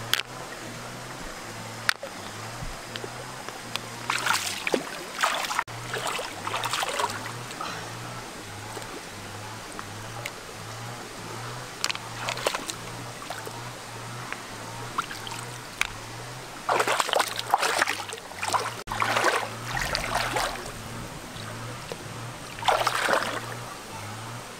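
Water splashing in a shallow rocky stream as someone wades and reaches into it by hand, in short bursts several times, over the steady flow of the stream. Background music with a steady low beat runs underneath.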